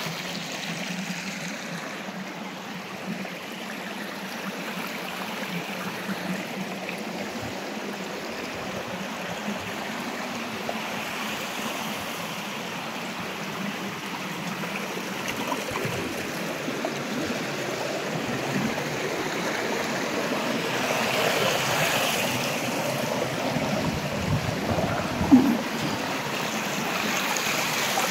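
Stream water running steadily over a forest streambed, a continuous rushing. One brief sharp sound stands out near the end.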